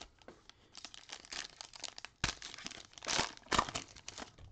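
Plastic wrapper of a trading-card pack crinkling as it is ripped open by gloved hands, in a run of crackly rustles with two sharper, louder rips, one about halfway through and one near the end.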